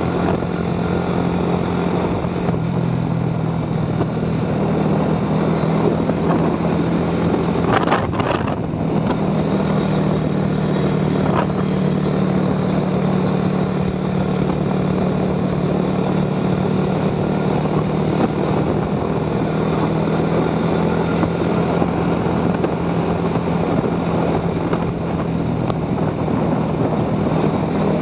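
Motorcycle engine running steadily under way, a constant drone with wind rushing over the microphone. About eight seconds in the engine note breaks off for a moment, then picks up again.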